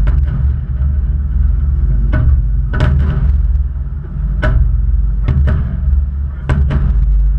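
Aerial fireworks bursting: about eight sharp bangs at uneven intervals over a continuous low rumble of booms.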